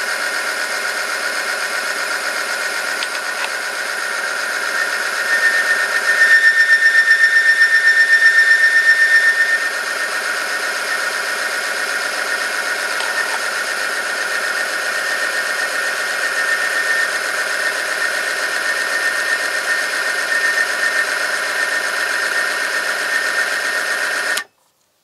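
Oil film strength test machine running: its electric motor drives a rotating part against a loaded metal sample bathed in oil heated to 100°C, giving a steady high-pitched whine of metal rubbing under load. From about five to nine and a half seconds in it turns louder and pulses rapidly, with a sharper squeal. Near the end it cuts off suddenly as the machine is switched off.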